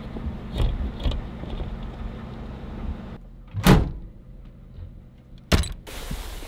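Pickup truck bed and topper being opened and unloaded: a low steady hum stops about three seconds in, followed by a loud thump and, about two seconds later, a sharp knock.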